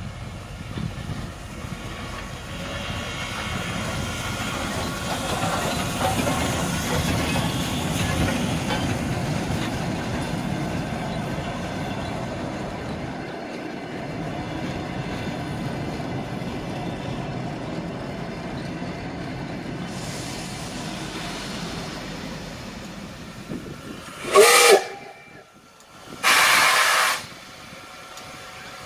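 Steam locomotive and its passenger coaches rolling past, with a steady rumble and clatter from wheels on rails and a hiss of steam joining in later. Near the end come two short, loud blasts: a steam whistle rising in pitch, then a hissing burst of steam.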